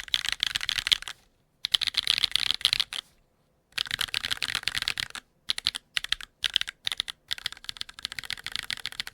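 Fast typing on a mechanical keyboard (DNworks SBL with HMX/yowzers Firecracker switches and GMK Earth tones keycaps): dense runs of keystrokes in bursts of a second or so, broken by short pauses, with shorter choppy bursts near the middle.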